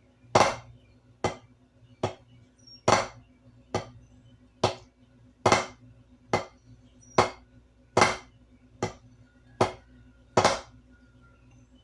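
Drumsticks playing the Swiss army triplet rudiment slowly: thirteen evenly spaced strokes, under a second apart, with every third stroke, the flam, accented and the two taps between it softer.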